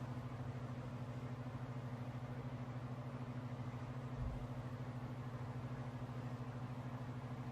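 A small motor running with a steady low hum and a fast, even pulse. A single dull low thump a little after four seconds in.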